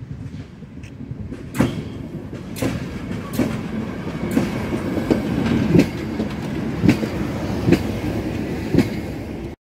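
PKP Energetyka overhead-line maintenance train passing close by. Its rumble grows louder as it approaches, with irregular sharp clacks of its wheels over rail joints. The sound cuts off abruptly at the end.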